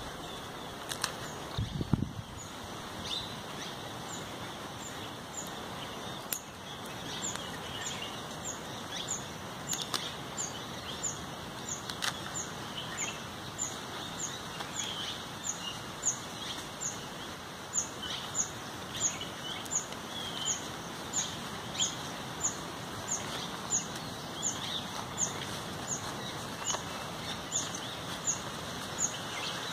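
A bird calling over and over, a short high downward chirp repeated a little more than once a second, with other birds chirping more softly and a steady outdoor background hiss.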